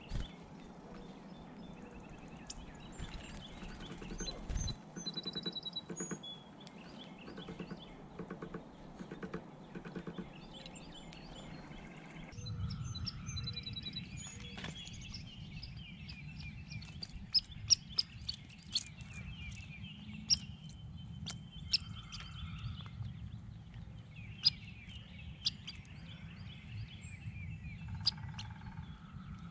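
Outdoor ambience with small songbirds chirping and trilling. About halfway through the background changes, and a run of sharp clicks and ticks follows, with one held whistled bird note.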